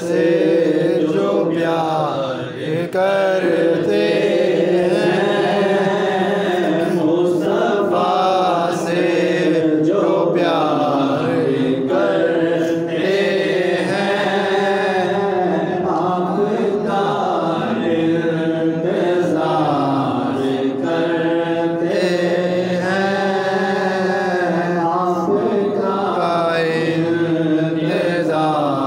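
A man singing a naat, an Islamic devotional poem, solo and unaccompanied into a microphone, in long wavering held notes.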